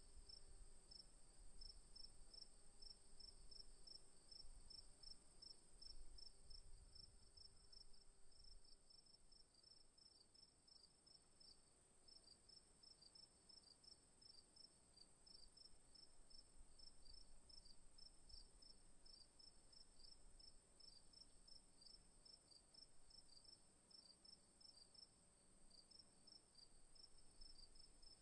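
Crickets chirping faintly in a steady rhythm, about three chirps a second, over a continuous high-pitched whine.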